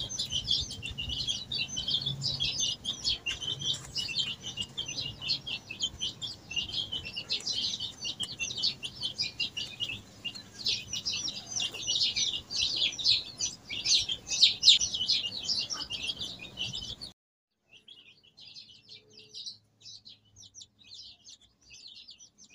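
Many birds chirping rapidly and densely, high-pitched and without pause. About seventeen seconds in the sound drops suddenly to a much fainter level while the chirping carries on.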